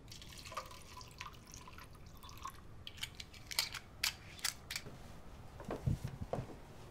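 Ice cubes being worked out of a plastic ice cube tray and into a plastic cup: a handful of sharp clicks and cracks in the middle, followed by a couple of soft thuds near the end.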